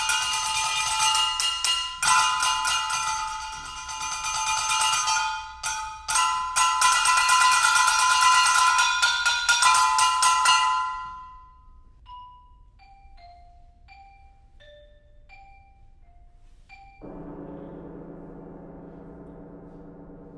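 Percussion music. A loud, bright metallic ringing with many repeated strikes dies away about halfway through. Then come a few sparse, short xylophone notes, and near the end a soft sustained vibraphone chord comes in.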